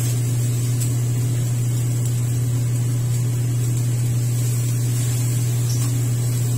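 A steady low hum at an even level, with a couple of faint ticks.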